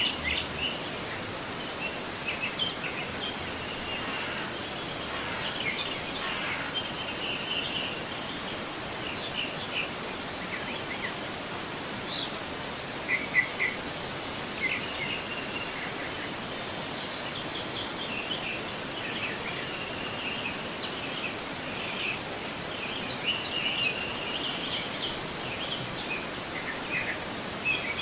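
Forest river water flowing steadily, with songbirds chirping and trilling often throughout.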